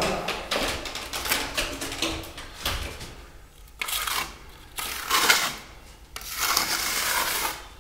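A steel trowel scrapes wet pearlescent decorative plaster into a wall corner in a series of separate strokes, the last one longer, near the end.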